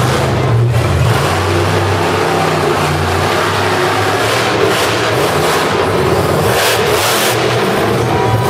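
Monster truck engine running hard and revving as the truck drives across the arena floor, with a louder burst of throttle about seven seconds in as it goes up on its back wheels.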